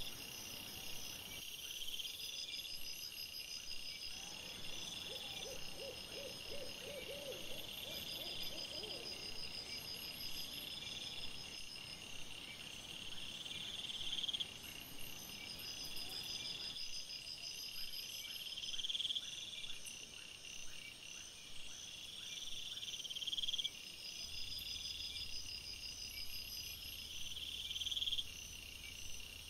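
Night-time insects trilling steadily in a repeating pattern, with a short run of lower pulsing calls about a quarter of the way in. A low hum joins near the end.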